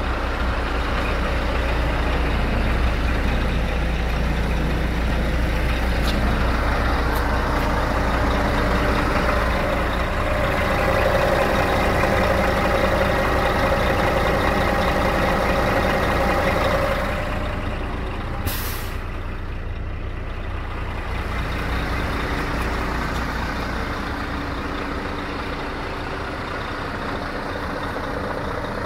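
Heavy truck diesel engine idling steadily, with a low rumble. About two-thirds of the way in comes one short, sharp hiss of compressed air, like an air brake or air valve venting.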